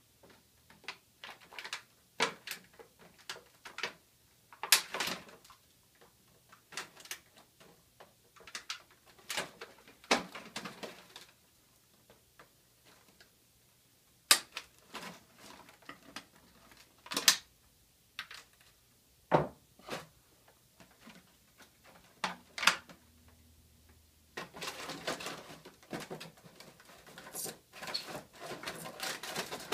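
Plastic packaging being handled: scattered clicks, taps and rustles of a bag and a clear plastic tray. A denser run of crinkling comes near the end.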